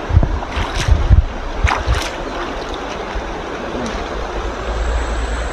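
Shallow river running over rocks, with a few splashing steps of a person wading out of the water in the first two seconds. Wind rumbles on the microphone, heavier near the end.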